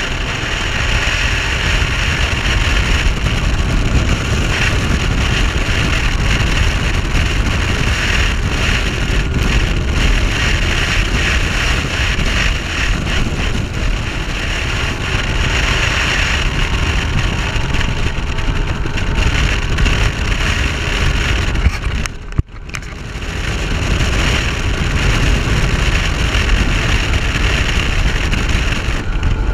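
Bass boat running at speed: wind buffets the microphone over the steady drone of its 150 hp Mercury OptiMax two-stroke outboard. About 22 seconds in the noise briefly drops out, then comes back.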